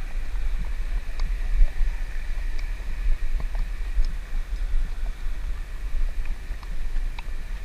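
Wind buffeting the microphone as an unsteady low rumble, over the steady rush of a river running alongside, with a few faint scattered clicks.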